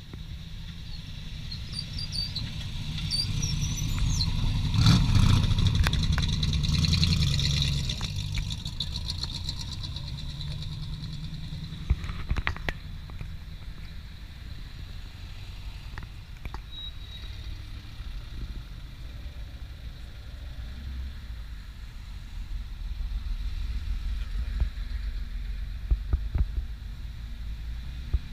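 An AC Cobra's V8 engine passing by loud, swelling to its loudest around five seconds in and then fading. Quieter passes by modern sports cars follow, an Audi TT RS among them, with a few sharp cracks around twelve seconds in and near the end.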